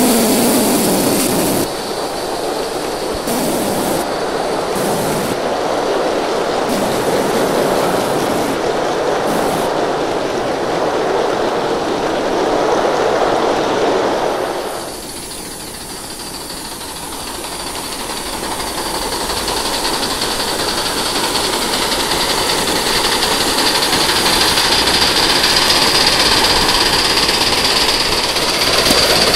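Aster live-steam model Garratt locomotive and its coaches running on the rails: a steady rolling clatter of wheels on track with no clear beat. It drops suddenly about halfway through, then builds again, with a steady high whine over it.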